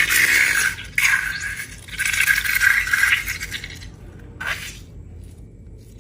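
A slime ingredient poured into a container in three pours with short breaks between them, a steady hiss each time, then one short sound about four and a half seconds in.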